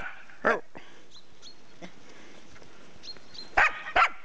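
A puppy barking in short, sharp barks: two about half a second apart, a three-second pause, then two more close together.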